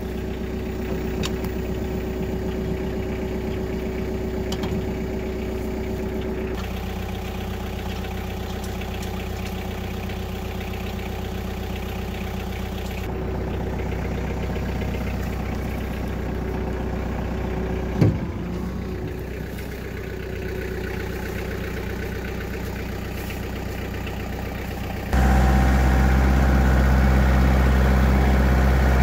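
Kioti DK45SE tractor's diesel engine idling steadily, with one sharp metal clank about two-thirds of the way through. Near the end the engine sound suddenly becomes much louder and fuller.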